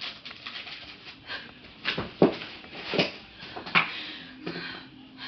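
A woman crying: whimpering sobs and sharp gasping breaths, the loudest about two seconds in, with more near three and four seconds in.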